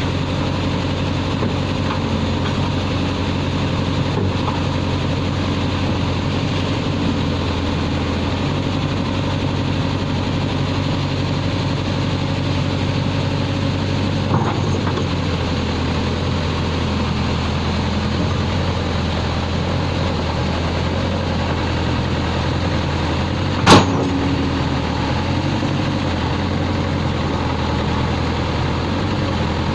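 Backhoe loader's diesel engine running steadily, without revving. A sharp knock comes about three-quarters of the way through, and a fainter one about halfway.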